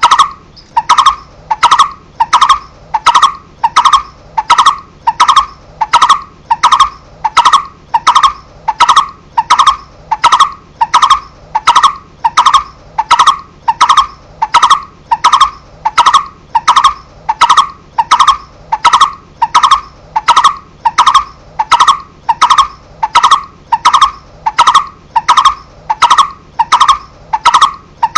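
Barbet (cu rốc) calling a steady, evenly spaced series of single notes, about three every two seconds, each note carrying a sharp click.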